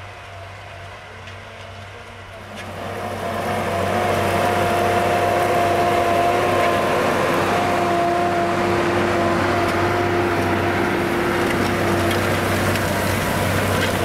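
Farm tractor pulling a disc harrow through dry soil: a steady engine drone under a rushing noise, growing much louder about three seconds in and then holding steady.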